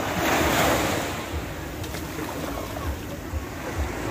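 Small sea waves breaking and washing up a sandy shore, swelling in the first second and then easing back, with low wind rumble on the microphone.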